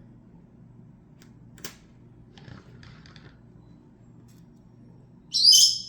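Small tools being handled and set down: one sharp light click, then a few soft clicks and rustles over a faint steady hum.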